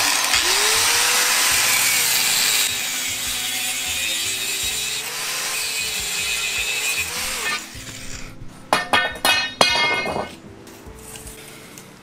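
Handheld angle grinder with a cutting disc cutting through a steel pipe, its motor pitch sagging and recovering under load, then stopping. Several loud clanks follow near the end.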